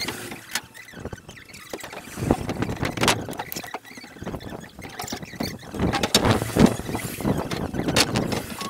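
Irregular knocks and squeaking scrapes over a steady rushing noise, from scaffold boards and fittings being handled.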